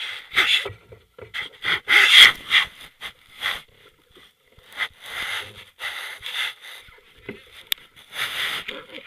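Irregular bursts of rustling, scraping noise close on the microphone, each a fraction of a second to about a second long, with short near-silent gaps between them.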